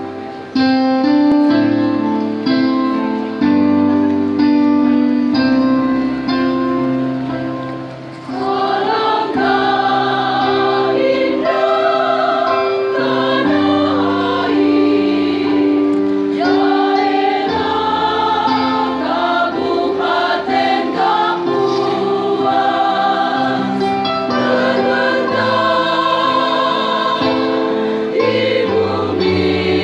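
A choir singing a hymn in parts over keyboard accompaniment. An instrumental introduction of held chords plays for about the first eight seconds before the voices come in.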